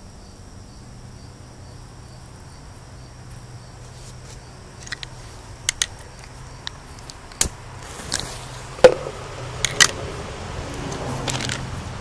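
A high, evenly pulsed insect trill, cricket-like, for the first few seconds. Then a run of sharp clicks and knocks, the loudest about nine seconds in, with a short scrape near the end, as of the hard plastic container being handled while the firecracker is set under it.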